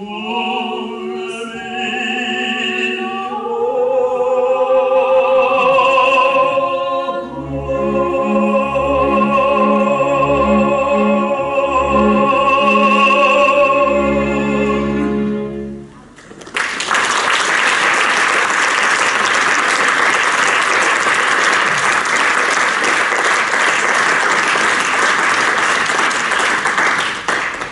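Soprano and baritone singing the close of an opera duet with wide vibrato, holding long final notes over orchestra chords that pulse in the low register; the music stops about 16 seconds in. Audience applause follows at once and runs on until just before the end.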